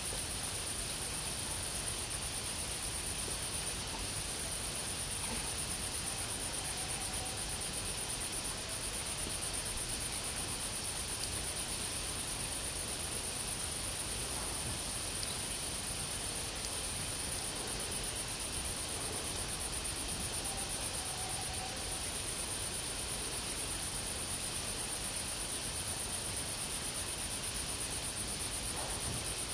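Crickets chirring: a continuous high-pitched trill that holds steady throughout, over a low background hiss.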